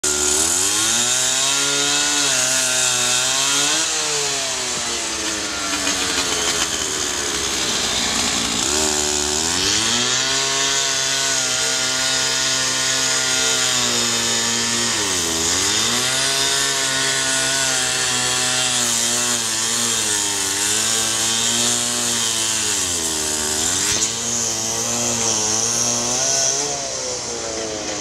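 Two-stroke cut-off saw cutting through steel rail: the engine runs at high revs, its pitch dipping and recovering several times as the blade is pressed into the cut, over a loud, continuous grinding hiss.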